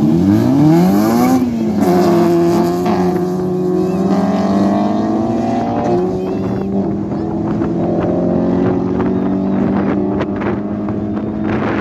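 Two drag-racing cars, a red Honda Civic hatchback and a white car, launching off the line and accelerating hard. The engine pitch climbs steeply, drops at a gear change about a second and a half in, then pulls on at a steadier pitch as the cars run away down the strip.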